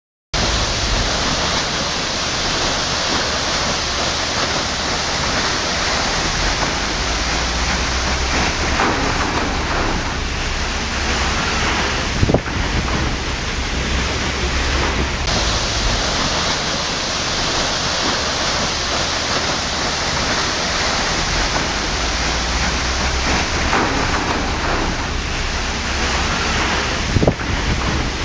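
Waterfall: a steady, full rush of falling water that starts abruptly right at the beginning, broken by two brief clicks, one about midway and one near the end.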